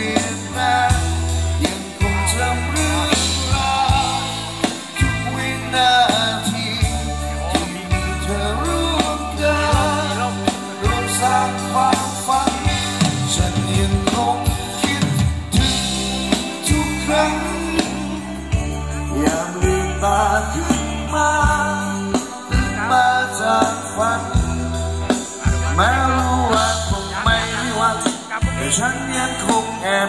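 Live Thai ramwong band music played through loudspeakers: electric guitars, heavy bass and drums keeping a steady dance beat under a wavering melodic lead.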